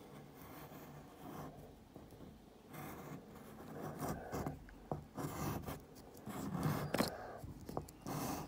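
A black oil pastel rubbed across paper in irregular scratchy strokes, with a few sharp taps from about four seconds in.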